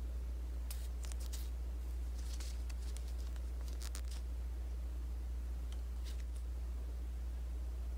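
Small cardstock paper cards being handled and shuffled: a string of short, crisp rustles and flicks in the first half, a few fainter ones later on. A steady low electrical hum runs underneath.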